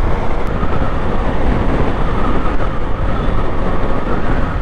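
Motorcycle riding at speed on a highway: a steady, loud rumble of engine, tyre and wind noise on the bike-mounted microphone.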